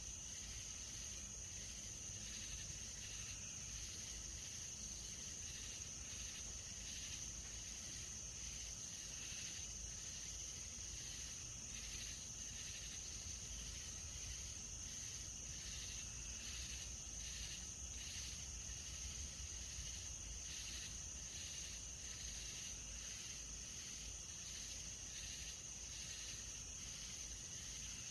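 Faint night-time chorus of crickets and other insects: a steady high-pitched trill, with rhythmic chirps pulsing beneath it.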